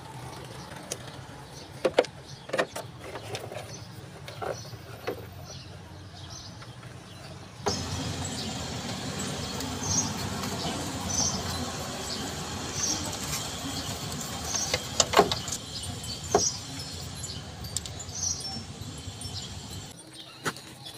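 A few sharp clicks and knocks of hard plastic air-cooler parts being handled, over steady outdoor background noise. After a cut, the background is louder and carries short, high chirps that repeat irregularly, with a couple more sharp clicks.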